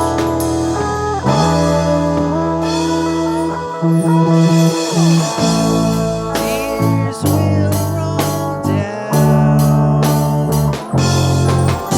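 A rock song's instrumental section: guitar playing gliding, bending lead notes over bass notes that change every second or so, with no singing.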